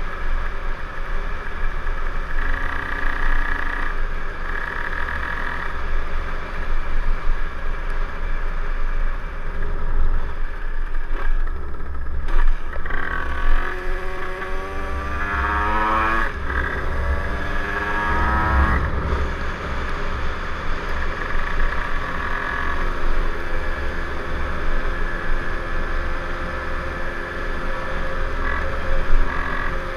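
Kundo KRD 70 moped's 70cc two-stroke engine running hard through its new exhaust while riding, the pitch climbing, dropping sharply at a gear change about halfway through, then climbing again. A steady low wind rumble lies underneath.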